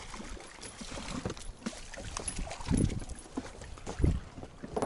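A hooked river fish thrashing and splashing at the surface beside an inflatable boat, water sloshing irregularly, with two heavier low thumps about three and four seconds in.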